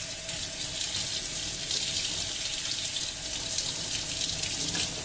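Water running steadily from a tap into a sink, splashing.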